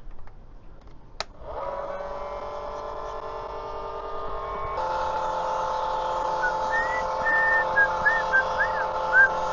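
Mellif cordless electric oil change pump switched on with a click about a second in, then running with a steady whine. About halfway through, its tone shifts and grows a little louder.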